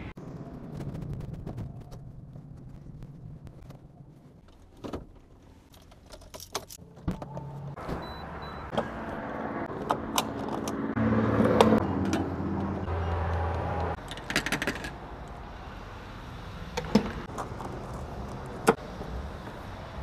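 Refuelling a car at a gas pump: scattered clicks and knocks as the fuel door, gas cap and pump nozzle are handled, over a steady low hum that is loudest in the middle.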